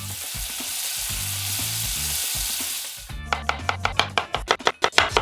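Food sizzling as it fries in oil in a pan, a steady hiss for about three seconds. It then breaks into a quick run of sharp clicks, about five a second, to the end.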